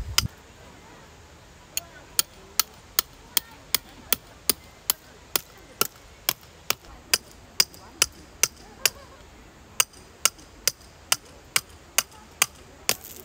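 A long run of sharp, evenly spaced strikes, a little over two a second, starting about two seconds in, with one short break about two-thirds of the way through.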